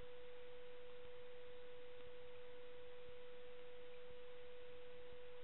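A steady, unwavering pure tone in the mid range, a constant electrical hum or whine over faint background hiss.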